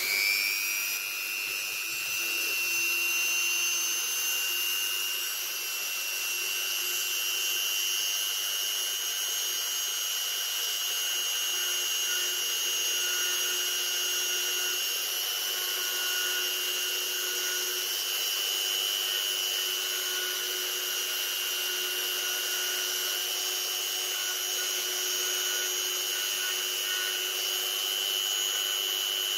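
Handheld rotary tool spinning up with a short rising whine, then running steadily at high speed while its small milling bit cuts into a wooden board.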